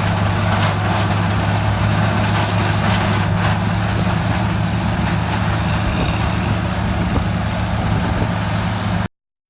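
Morbark 3200 horizontal track grinder's large diesel engine running steadily under a heavy, even drone, with a faint high whine that sinks a little in pitch in the second half. The sound cuts off abruptly near the end.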